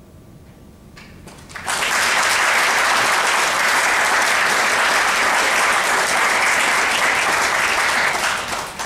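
Audience applauding: a few scattered claps about a second in, then full, steady applause that dies away near the end.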